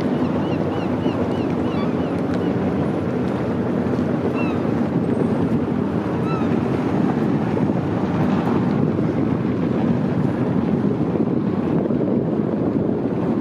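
Motorboat under way: a steady mix of engine drone, water along the hull, and wind buffeting the microphone.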